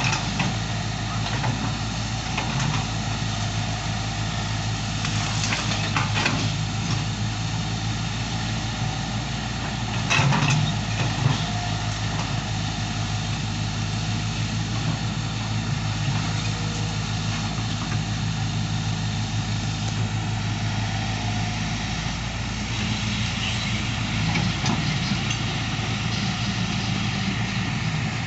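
Excavator's diesel engine running steadily, with a few brief clatters, the loudest about ten seconds in.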